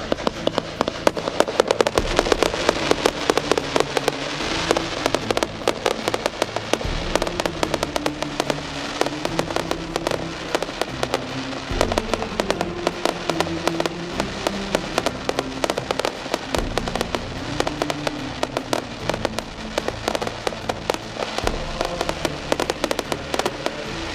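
Fireworks going off in a fast, continuous barrage of bangs and crackles, over music with held chords that change every few seconds.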